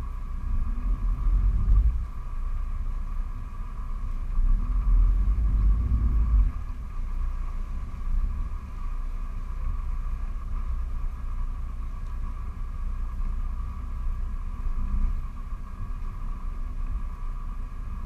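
A motor yacht's engines rumbling at low speed, swelling twice under short bursts of throttle with a brief rising pitch in the first several seconds, then settling to a steadier, lower rumble as the boat is eased in to dock. A steady high whine runs under it throughout.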